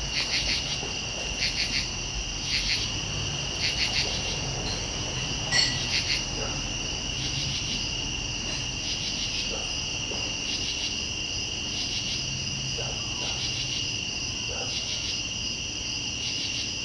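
Crickets trilling steadily in a high pitch, with a pulsing insect call repeating about once a second over it, and a faint low hum underneath.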